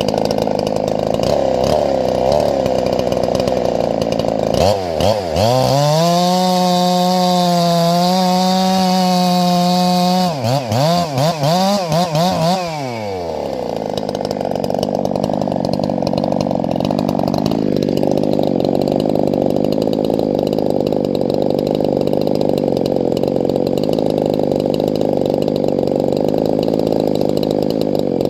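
Two-stroke chainsaws running. About five seconds in, a nearby saw goes to full throttle and holds a high, steady pitch for about five seconds as it cuts, blips the throttle several times, then drops back to idle, while other saws keep running in the background.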